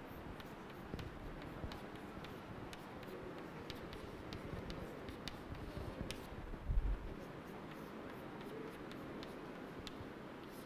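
Chalk writing on a chalkboard: a string of small sharp ticks and taps as the strokes are made, with one low thump about two-thirds of the way through.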